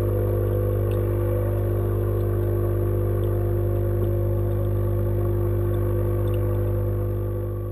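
Aquaponics tank's water pump humming steadily underwater: one strong low tone with a stack of fainter higher tones above it, and a few faint ticks. It fades out near the end.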